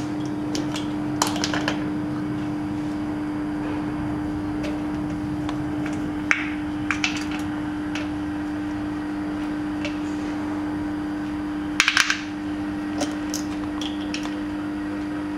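A steady electrical-sounding hum at one pitch, with scattered light metallic clicks and taps from the compression tester's hose and fitting being handled on the cylinder head, a quick cluster of them about twelve seconds in.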